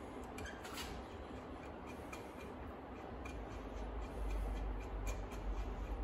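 Light metallic clicks and ticks of a T-handle hex key working inside a three-jaw lathe chuck body, with a low rumble in the last couple of seconds.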